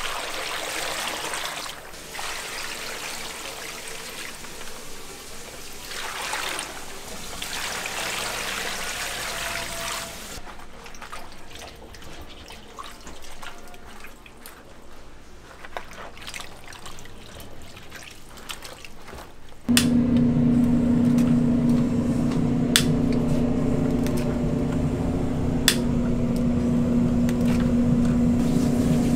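Water poured from a plastic basin splashing over raw chicken feet in a large stainless steel bowl for about ten seconds. Then, more quietly, gloved hands scrub and rub the chicken feet with small clicks. About twenty seconds in, a loud steady hum with a low drone starts suddenly: the gas burner under the bowl lit and running.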